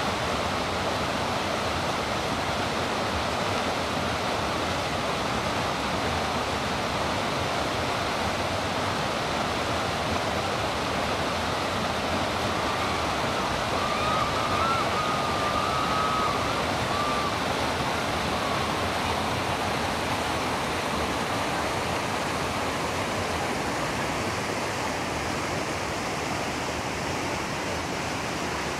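River rapids: white water rushing and churning over rocks in a steady, continuous wash of noise.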